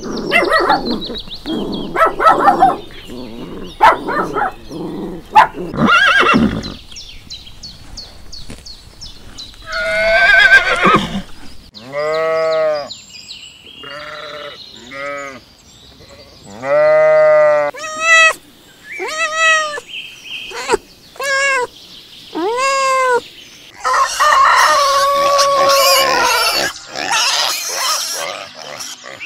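A run of farm animal calls. Short dog barks come in the first few seconds, then sheep bleat about ten times in the middle, each call rising and falling in pitch. A longer, noisier animal call follows near the end.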